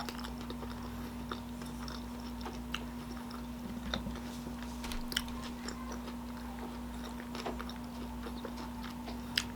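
A person chewing a mouthful of jelly-coated vegan fish sticks close to the microphone, with soft scattered mouth clicks over a steady low hum.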